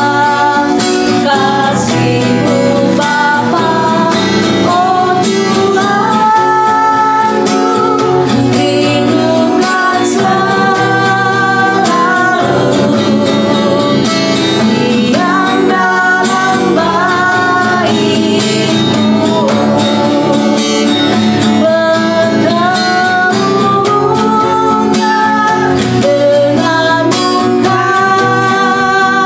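Worship song: a voice singing a melody over guitar accompaniment.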